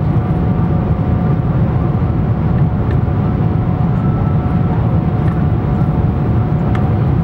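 Steady cabin noise of a jet airliner on approach with flaps extended: a dense low rumble of engines and airflow, with a faint steady whine above it.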